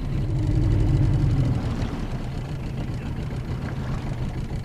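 Outboard motor running steadily on a small boat, a low even drone that swells a little in the first second and a half, then settles.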